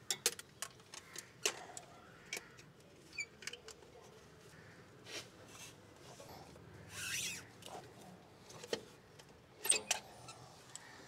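Scattered sharp clicks and knocks of a tool on metal, with a short scraping hiss about seven seconds in, as an oil filter wrench is fitted to the oil filter of a Toyota Qualis diesel engine and worked loose.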